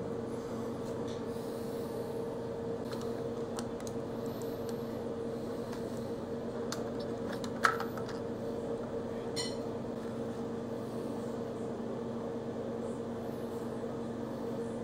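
Small clicks and taps of a laptop motherboard and its metal and plastic parts being handled and fitted into the chassis, with one sharper click about halfway through, over a steady low room hum.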